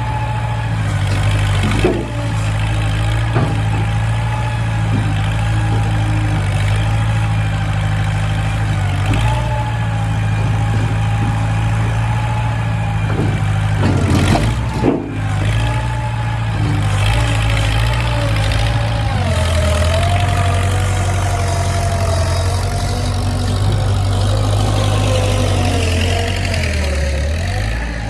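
Skid steer loader engine running steadily, its pitch rising and falling as it is worked, with a few knocks near the start and around the middle.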